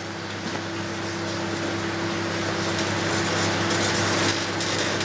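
Microwave oven running with a steady electrical hum, and a growing hiss and crackle of arcing from the mobile phone burning inside it.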